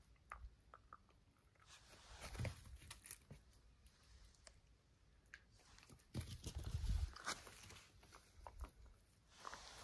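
Jack Russell terrier chewing and gnawing on something, with small crunching clicks. Louder scuffling and thuds follow about two seconds in and again around six seconds in.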